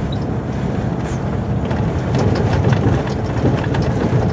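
Volvo FH 440 truck's 13-litre six-cylinder diesel engine running steadily under way, heard from inside the cab, with road noise and faint scattered clicks.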